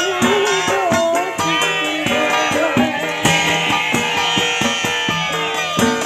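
Live cekeneng folk music: a rope-laced kendang hand drum and a large drum beat a busy, even rhythm under a wavering, gliding melody.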